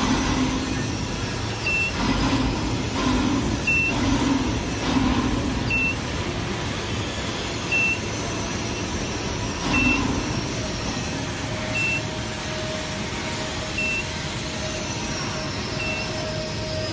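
A short high electronic beep repeating about every two seconds over a steady din of industrial machinery, with a few heavier low bursts of noise in the first five seconds and again around ten seconds in.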